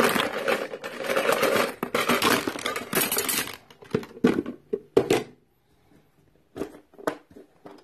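Hard plastic toy tools clattering against each other and against plastic eggs as a handful is dropped into a bin. The clatter lasts about three and a half seconds, then a few separate clicks and knocks follow.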